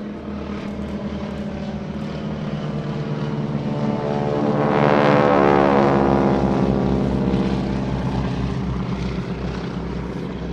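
Radial engines of two Boeing Stearman biplanes flying past in formation: a steady propeller drone that grows louder to a peak about halfway through, then drops in pitch and fades as the planes move away.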